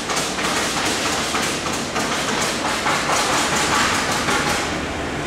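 Industrial machinery in a nitrogen generator plant: a loud rush of air-like noise with fast, irregular rattling and clatter starts suddenly right at the beginning and keeps going, over a low steady hum.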